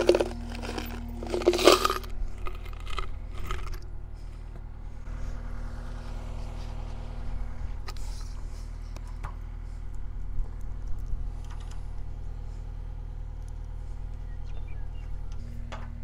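Loose bolts and washers jingling and clinking, loudest in the first two seconds, then quieter scattered clicks as the hardware is fitted at the seam of a corrugated steel tank. A steady low hum runs underneath.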